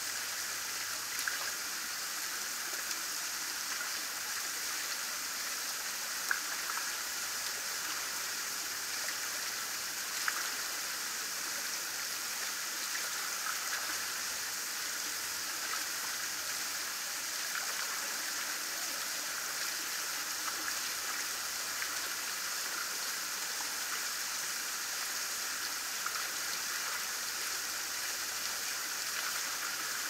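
Shallow water flowing down over concrete steps, a steady trickling rush with a few small splashes.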